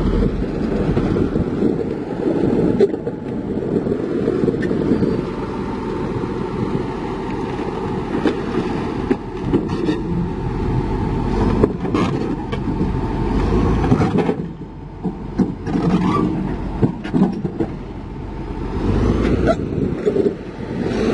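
Heavy diesel construction machinery running steadily, with scattered metallic clanks and scrapes.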